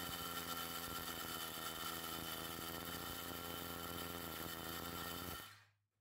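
Power drill boring into a concrete slab with a masonry bit, running steadily, then stopping about five and a half seconds in.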